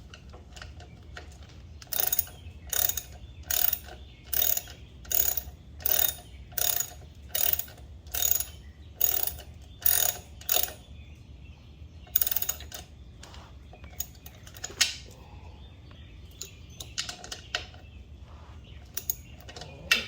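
A socket ratchet with a 5/8" socket clicking in steady back-strokes, a little under one a second, then a few scattered clicks, as the primary drain plug of a 2017 Harley-Davidson Freewheeler is run in and snugged down.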